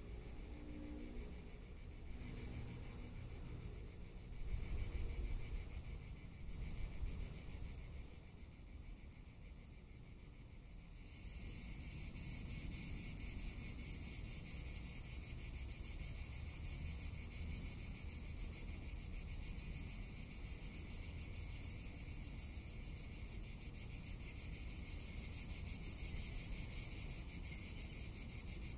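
Cicadas singing in a steady, continuous high buzz that swells louder about eleven seconds in. A low rumble comes through a few seconds in.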